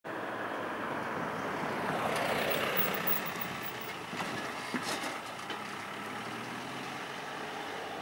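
Steady background road-traffic noise, swelling as a vehicle passes about two to three seconds in, with a few short clicks near the middle.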